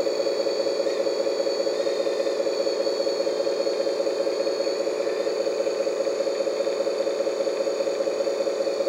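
Hydraulic pump of a Lesu 1/14-scale RC crane truck running with a steady, evenly pulsing mechanical hum while it drives the telescopic crane boom out.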